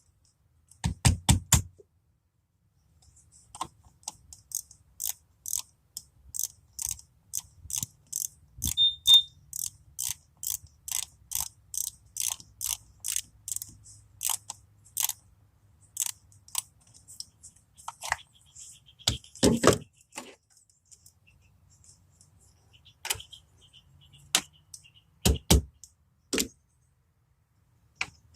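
An even run of sharp mechanical clicks, about two a second, then scattered clicks and a few heavier knocks.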